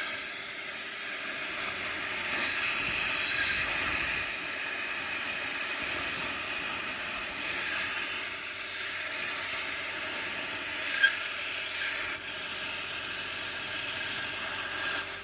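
Compressed air hissing steadily through a walnut-shell media blasting gun while carbon is blasted off intake valves and ports. There is a sharp tick about eleven seconds in.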